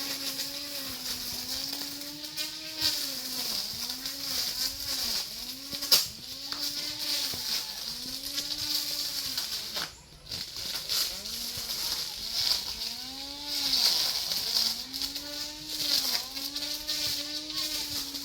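Brush cutter engine running at high revs, its pitch sagging and recovering about once a second as the blade cuts, with scattered sharp clicks and one loud knock about six seconds in.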